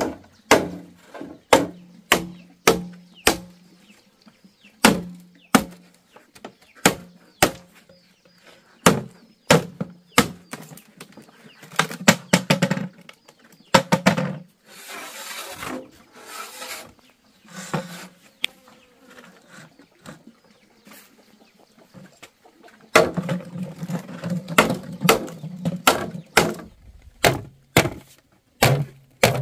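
Machete blows on green bamboo poles: a string of sharp knocks, about one to two a second, many followed by a short hollow ring from the tube. A longer rasping stretch comes in the middle, and the blows come quicker near the end.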